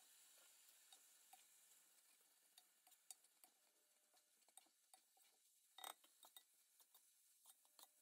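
Faint clicks and scrapes of a wooden spoon and tongs against a nonstick wok as noodles are tossed, with one louder clack about six seconds in. A faint sizzling hiss fades over the first couple of seconds.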